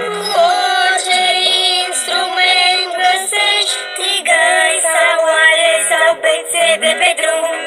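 A cartoon song: high-pitched voices singing over a musical accompaniment.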